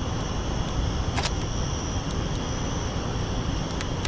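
Steady outdoor background: a constant low rumble with a steady high-pitched hum above it, broken by one sharp click about a second in and two fainter clicks near the end.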